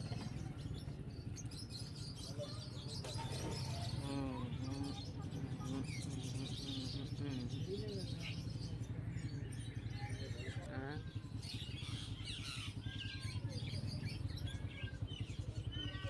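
Many caged small birds chirping and tweeting, short high calls overlapping throughout, over a steady low background hum.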